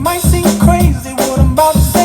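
Music with a steady drum beat and a bass line, and a melody over them.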